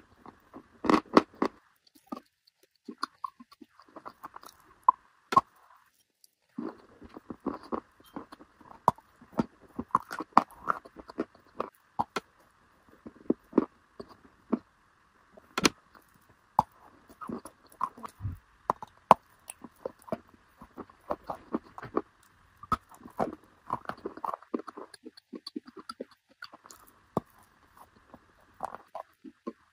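Close-up crunching and chewing of dry white chalky blocks, bitten off and ground between the teeth in dense, irregular crisp crunches with short pauses.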